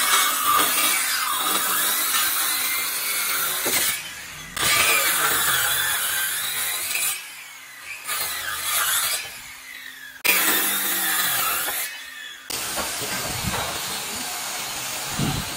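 Handheld electric circular saw cutting across a wooden plank, the blade whining loudly in the wood. The sound breaks off abruptly and starts again several times.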